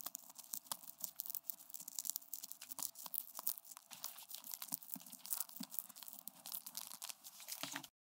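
Rat making a faint, quick, irregular run of small scratching and crunching clicks that stops just before the end.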